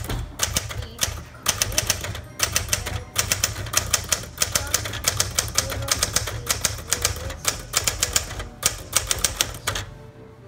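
Keys of a 1965 Smith Corona Galaxie II manual typewriter typed in fast runs of keystrokes, the typebars striking the paper, with brief pauses between runs; the typing stops shortly before the end.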